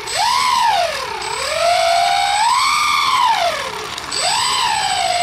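Twin propeller motors of a radio-controlled Cessna twin model being throttled up and down on the ground, the pitch rising and falling several times before holding steady near the end.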